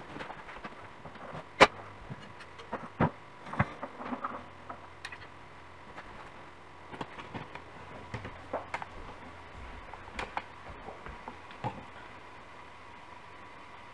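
Irregular knocks and clatter of a metal-framed side table with wooden shelves being lifted, set down and shifted, the sharpest knock about one and a half seconds in and a cluster of bumps around three to four seconds, fewer and fainter after that.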